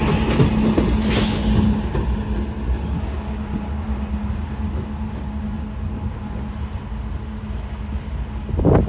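GE Dash 9 diesel locomotives of a freight train rolling past and moving away, a steady engine hum over wheel-on-rail rumble that slowly fades. There is a brief loud rush about a second in, and a sudden gust-like burst near the end.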